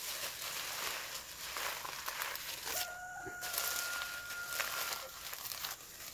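Leafy green stems rustling as they are gathered and bunched by hand, with a rooster crowing once in the middle, a long held call of a couple of seconds.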